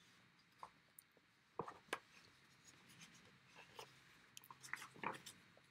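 Near silence with scattered faint clicks and light rustling, the loudest a pair of clicks a little under two seconds in and another near the end.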